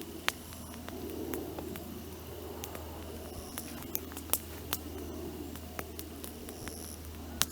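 Dry branches burning in a campfire, crackling with sharp, irregular pops over a low, steady rumble.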